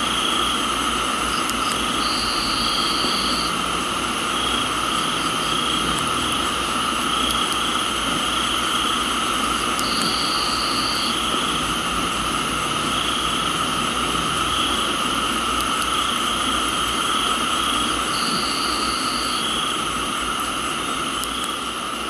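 Tropical night chorus of crickets and other insects trilling in several steady high bands, one of them pulsing, over a steady hiss of rain. A higher call of about a second and a half repeats three times, about eight seconds apart. It all begins to fade out near the end.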